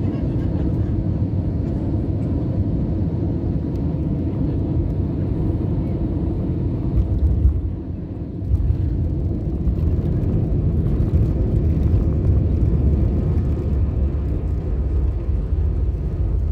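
Airbus A320 cabin noise during landing, heard from a window seat: a steady low engine and airflow rumble, a brief jolt and drop about halfway through as the wheels touch down, then a louder low rumble as the airliner rolls down the runway.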